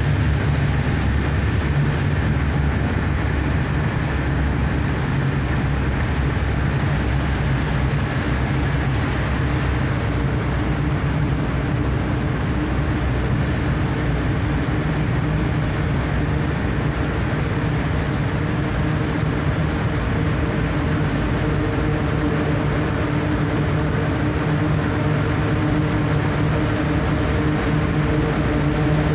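Steady engine drone and road noise heard from inside a moving vehicle's cabin while it drives through a road tunnel, with an even low hum under the rushing noise.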